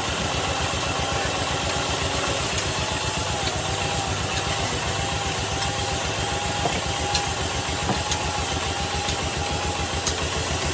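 Wood-turning lathe running, a steady fast low thrum with a faint wavering whine above it and a few light ticks.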